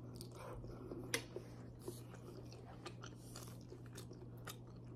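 A person chewing a mouthful of Filipino-style spaghetti: faint, close, wet mouth sounds with small clicks, scattered irregularly.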